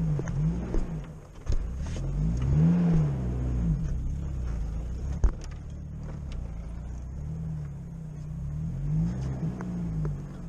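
UAZ 452-series van's engine running under load off-road, its revs rising and falling again and again as the throttle is worked over rough ground. A few sharp knocks come from the body on the bumps, the loudest about five seconds in.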